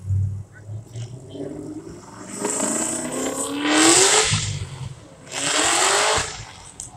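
A car engine revved twice, its pitch climbing steadily through each rev before dropping off; the first rev lasts about two seconds and is the loudest, the second is about a second long.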